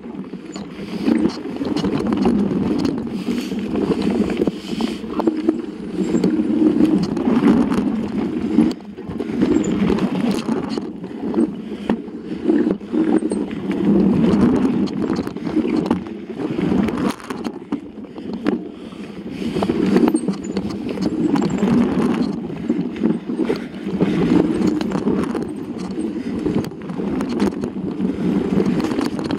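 Mountain bike riding down a rough dirt singletrack, heard through a handlebar-mounted camera: a continuous rumble from the tyres and frame, with frequent rattles and knocks as the bike crosses roots and rocks.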